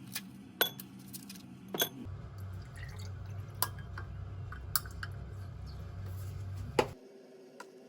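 Kitchen sounds: sharp clinks of glass and dishware, with liquid sounds. A low steady hum starts about two seconds in and stops suddenly with a click near the end.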